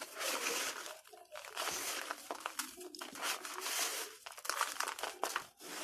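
Dry red dirt balls crunching and crumbling apart, a gritty crackling in several bouts with short pauses, the last a quick run of sharp crackles.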